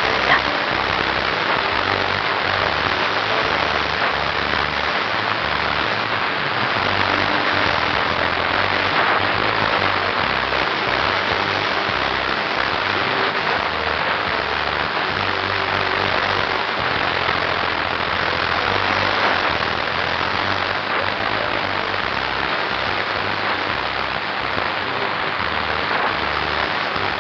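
Fountain water pouring from rocks and splashing steadily into a basin, a constant rushing hiss with no breaks.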